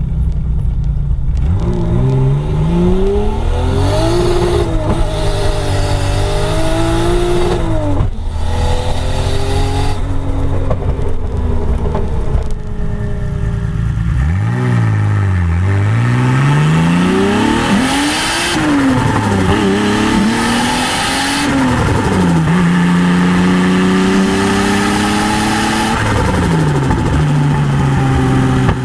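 Turbocharged BMW M20 inline-six on individual throttle bodies in an E30, accelerating hard through several gears: the engine note climbs and drops back at each gearshift, then settles into steady cruising near the end. It is heard first from inside the cabin, then from a mount outside over the hood.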